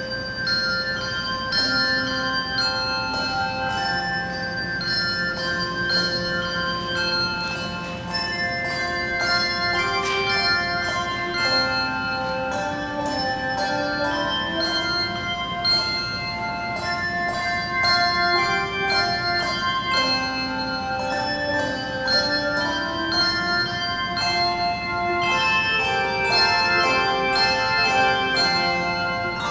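Handbell choir playing a piece: many bells struck in turn and together, each note ringing on and overlapping the next.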